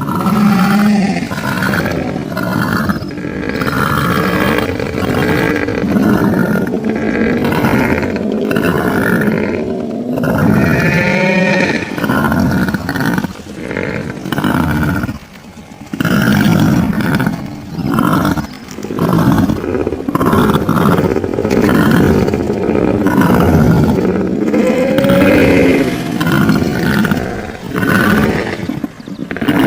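Made-up creature sound effect for an Andrewsarchus: a loud string of drawn-out, animal-like calls whose pitch rises and falls, broken by short pauses.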